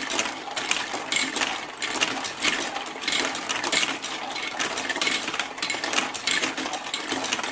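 Marbles rolling and clattering down a plastic marble-run track, a continuous rattle of rapid clicks.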